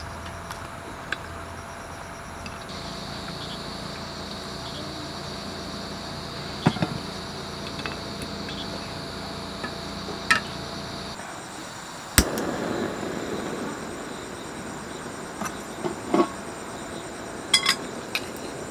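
Scattered light clinks and knocks of cookware and a metal plate being handled on a camp kitchen table, over a steady background hum; one sharper knock about twelve seconds in.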